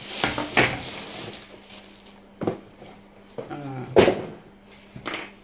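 Plastic bags and bubble wrap rustling and crinkling, then three sharp knocks as metal and plastic microphone-kit parts are put down on a wooden table. The loudest knock comes about four seconds in.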